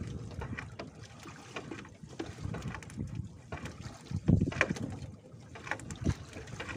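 Water splashing and sloshing as a fishing net is worked by hand in shallow water. The splashing is irregular, with the loudest splashes a little after four seconds and again about six seconds in.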